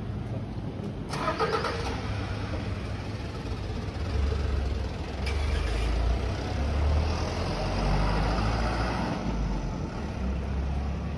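Street traffic: motor vehicles running past on the road alongside, a low engine rumble that swells and stays strong through the second half. A brief clatter about a second in.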